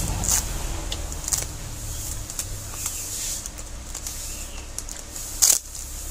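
Close-up eating sounds: chewing and mouth noises with scattered small clicks as fingers work rice and food on a metal plate, and one louder sharp sound about five and a half seconds in.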